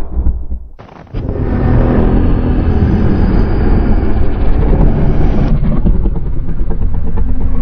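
Loud, low rumbling creature sound effects for a giant monster: one rumble fades out about a second in, and a new one starts at once and changes partway through.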